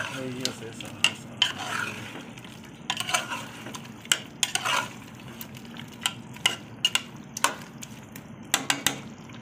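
Metal ladle stirring chicken pieces and tomato-onion masala in a large metal pot, scraping and knocking against the pot at irregular intervals.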